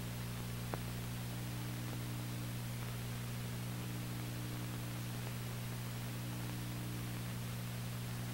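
Steady electrical mains hum over even hiss, the noise floor of an old film soundtrack transfer, with one faint click under a second in. No sound of the play is heard: the footage is high-speed and silent.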